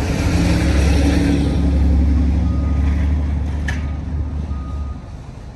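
Motor vehicle engine running close by: a deep steady rumble that drops away about five seconds in, with two faint short beeps in the middle.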